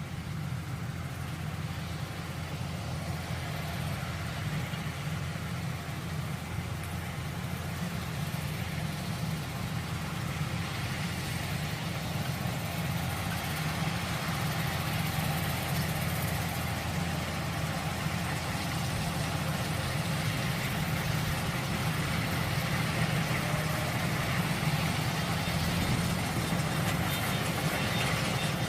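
Kubota DC-105X combine harvester's diesel engine running steadily, with a deep low hum, growing gradually louder.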